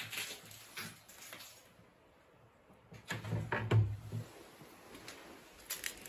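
Kitchen cupboard doors being opened and shut: a few light clicks and knocks, then a louder cluster of knocks and thumps about three seconds in, and another click or two near the end.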